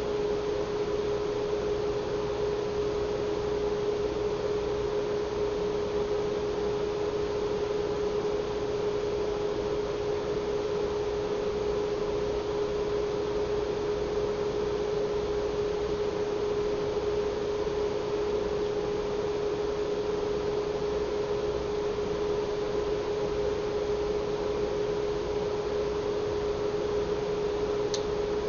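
A steady hum held on a single pitch over constant background hiss, with a small tick near the end.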